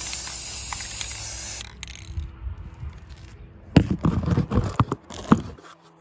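Aerosol can of Rust-Oleum metallic gold spray paint hissing in one steady burst that stops about a second and a half in. A few seconds later comes a quick cluster of knocks and rattles from handling.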